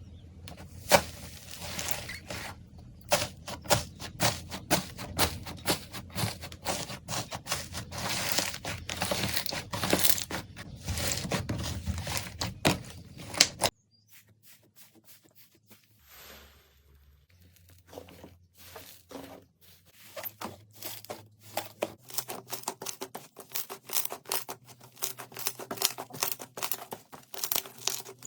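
Slime being squeezed and kneaded by hand, giving dense crackling and popping clicks. The sound cuts off sharply about halfway through. After a few quieter seconds the crackling builds again.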